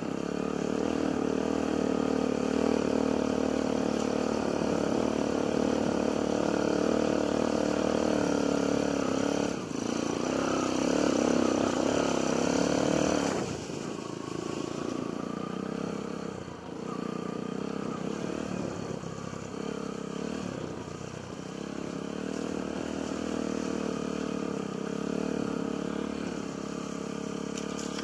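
Yamaha XTZ125 trail bike's single-cylinder four-stroke engine running as the bike is ridden, its note rising and falling with the throttle. It runs louder for the first dozen seconds or so, then drops back to a lower, wavering throttle.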